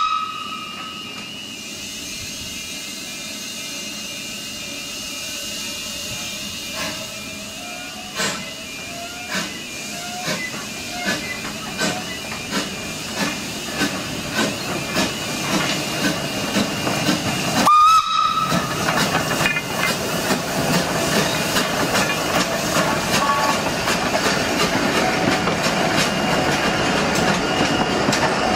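Isle of Man Steam Railway narrow-gauge steam tank locomotive departing. It opens with a short whistle blast and a steady hiss of steam. Then its exhaust beats start slow and quicken as it pulls away, with a second short whistle about eighteen seconds in, and finally the carriages roll past with wheel clatter.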